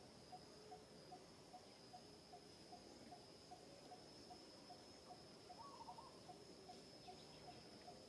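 Faint outdoor insect ambience: a steady high-pitched insect drone with a soft note repeating evenly about two and a half times a second. A short cluster of chirps comes about six seconds in.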